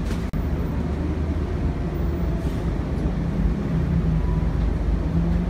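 Inside a moving bus: steady low rumble of the bus's engine and tyres on the road, with a hum that grows stronger in the second half.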